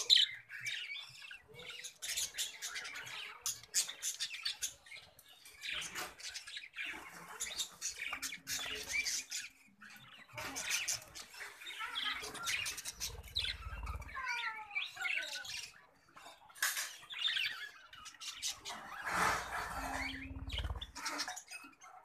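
A flock of budgerigars chattering continuously with quick chirps, warbles and squawks. A low rumble comes and goes twice in the second half.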